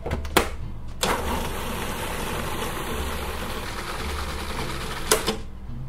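Food processor motor running steadily, its blade pureeing white beans with lemon juice into a smooth dip. It starts about a second in, after a click, and stops suddenly a little after five seconds.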